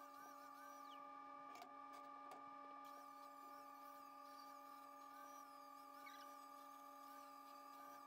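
Near silence: only a faint steady hum of several held tones, with a faint high wavering tone over it.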